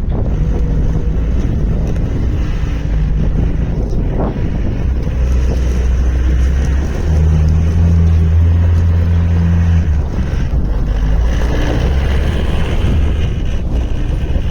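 Gehl R190 skid steer loader's diesel engine running steadily, growing louder for a few seconds in the middle before settling back.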